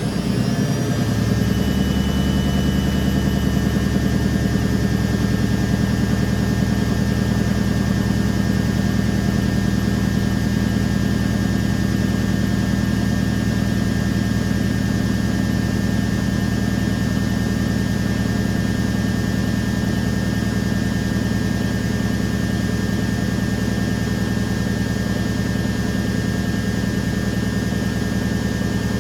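Candy Aquamatic 100F washing machine's drum and motor in the intermediate spin at 600 rpm, finishing its run-up about a second in and then spinning at a steady speed with a steady high whine.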